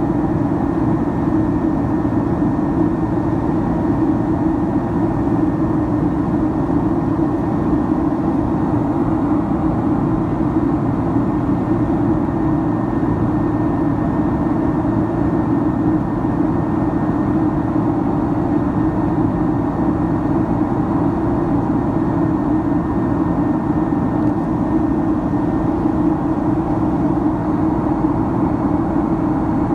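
Cabin noise inside a Boeing 767-300ER in flight: its jet engines and the air rushing past the fuselage make a steady, loud low drone. A faint high whine sits over it and fades out near the end.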